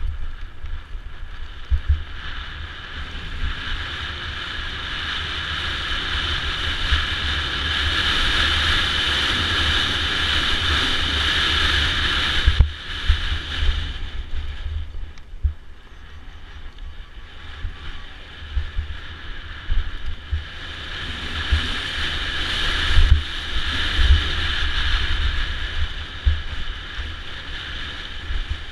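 Mountain bike running fast down a rocky gravel trail: a steady rush of tyre and wind noise on the microphone, with constant low thumps as the bike and camera are jolted over rocks. The rushing noise swells louder for several seconds at a time, drops off suddenly about twelve seconds in, and builds again around twenty seconds.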